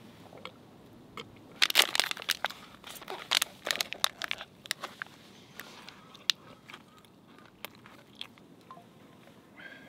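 Close crunching and crackling with sharp clicks, densest from about one and a half to four and a half seconds in, then scattered single clicks.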